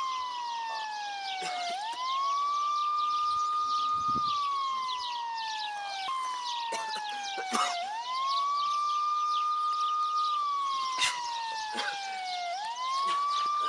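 A siren wailing: the tone climbs quickly, holds high for a couple of seconds, then slides slowly down, over and over, about every five to six seconds.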